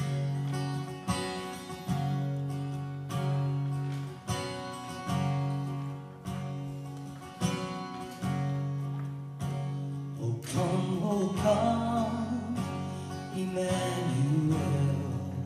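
Background music: acoustic guitar strumming chords in a steady rhythm, with a wavering melody line coming in about two-thirds of the way through.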